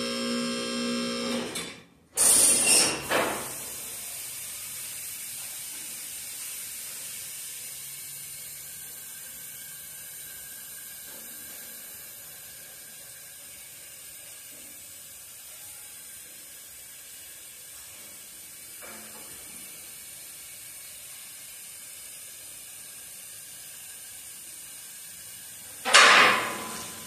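Wildfire four-post car lift being lowered: the electric hydraulic pump motor hums briefly and cuts off, a loud clatter comes about two seconds in as the lift drops off its locks, then a long steady hiss as hydraulic fluid bleeds back through the lowering valve while the van-laden runways descend. A loud clunk near the end as the lift comes down to rest.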